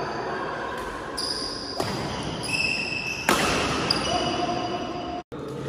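Badminton rally: rackets strike the shuttlecock twice, about a second and a half apart, with short high squeaks of shoes on the court floor. The sound cuts out for a split second near the end.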